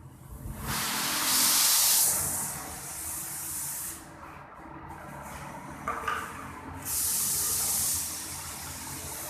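Paint spray machine's gun spraying paint onto a wall in bursts: a loud hiss starting about half a second in and fading by four seconds, then another strong burst of hiss about seven seconds in, over a low steady hum.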